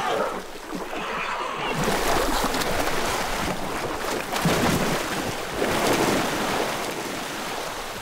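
Muddy pool water splashing and churning as a herd of elephants wades and thrashes through it, a continuous rush of splashes.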